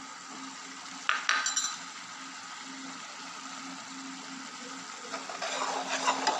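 A bowl of spice paste tipped into a pan of sizzling masala, with sharp clinks of the bowl and spoon against the pan about a second in; near the end a spoon stirs the frying paste through the masala, the sizzle growing louder. A steady low hum runs underneath.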